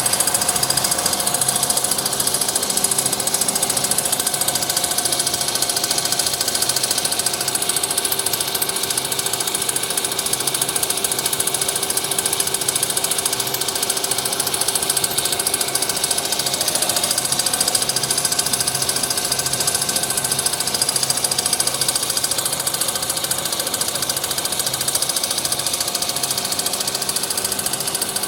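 Fried snack food production machinery running steadily, an unbroken mechanical noise with several steady tones held throughout.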